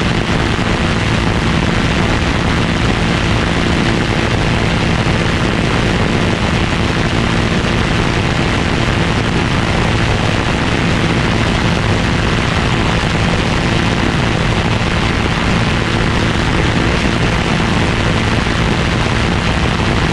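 A loud, steady engine drone under a constant rushing noise that never lets up, heard through a GoPro Hero 6's microphone with poor sound quality.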